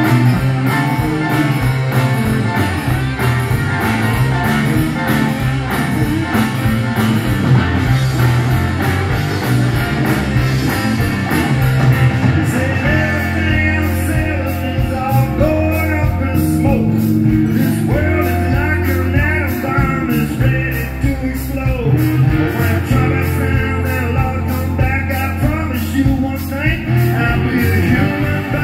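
Live blues-rock band playing loudly through a stage PA, with a man singing from about halfway in.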